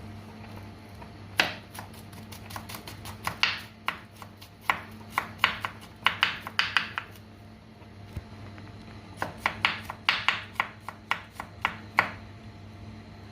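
Kitchen knife chopping garlic on a cutting board: runs of quick, sharp taps with short pauses between them.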